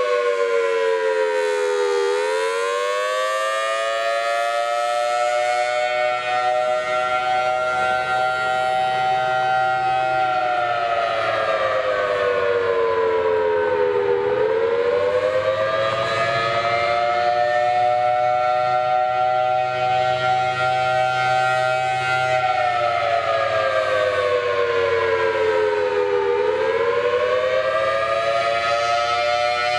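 Federal Signal Thunderbolt 1000T civil defense siren sounding a test, its pitch slowly rising and falling. The tone dips to its lowest about two seconds in, again near the middle and again near the end, then climbs back and holds steady for several seconds each time.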